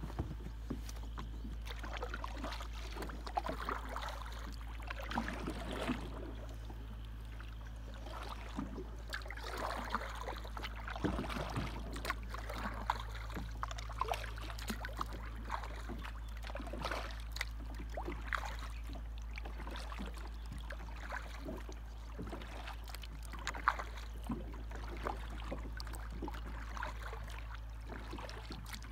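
Paddle dipping and splashing in calm river water, with drips and light sloshing at an uneven pace, over a steady low hum.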